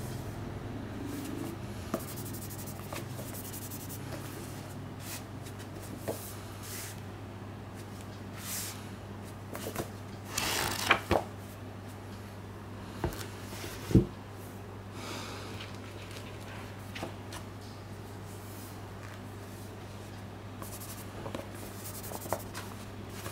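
Paperback manga volumes handled with cloth-gloved hands: soft rubbing and sliding against the covers, a louder paper rustle about ten seconds in, and a few sharp taps, over a steady low hum.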